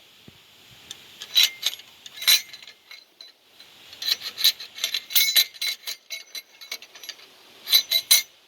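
Quick metallic clicks and clinks with a slight ring, in three bunches: about a second and a half in, again from about four to six and a half seconds in, and near the end.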